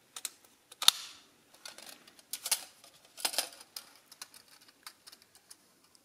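Clicks and light metallic knocks of a tin-plate toy being handled: its fold-out wire stand is moved against the tin back, then the tin is turned over in the hands. There are several separate sharp clicks, the loudest about a second in.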